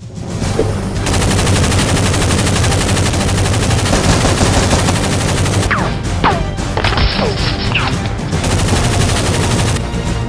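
Sustained automatic gunfire sound effects, rapid shots running together without a break, with a few falling whistle-like tones in the middle.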